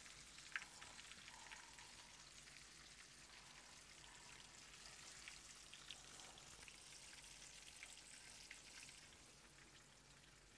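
Apple fritters frying in shallow oil in a skillet: a faint, steady sizzle with small crackles, easing off a little near the end.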